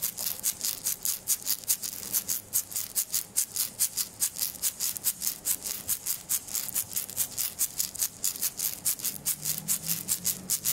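A handheld rattle with a round head on a wooden handle, shaken in an even rhythm of about five crisp, high rattling strokes a second.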